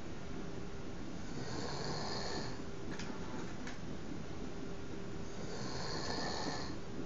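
A man snoring in his sleep, a low rattling rumble with two hissy breaths about four seconds apart. Two short clicks fall between the breaths.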